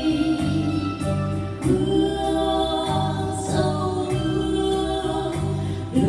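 Two women singing a duet through microphones and a PA, over an electronic keyboard accompaniment with a steady pulsing bass beat.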